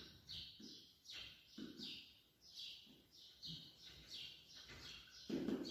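Whiteboard marker squeaking on the board as a word is written: a run of short, high squeaks, about two or three a second.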